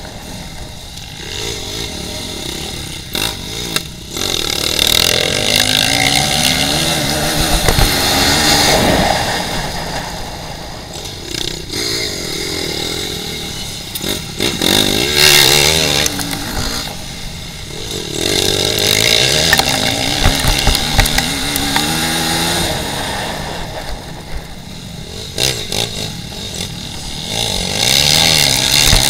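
Dirt bike engine heard from on board, revving up and backing off over and over as the rider accelerates, shifts and slows through the turns of an off-road course.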